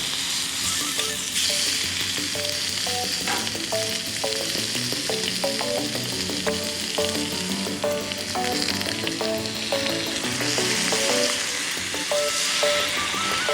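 Beef sizzling and crackling steadily in a hot sukiyaki pan, with occasional stirring.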